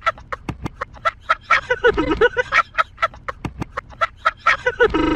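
A voice chopped into a rapid stutter loop, about five short repeated bursts a second, the kind of cut-up edit used in YouTube Poops. Near the end it turns into a steady, buzzy tone.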